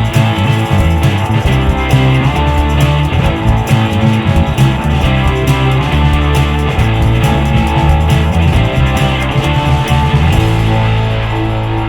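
Background music: a rock track with guitar and bass over a steady beat, settling into a held low chord near the end.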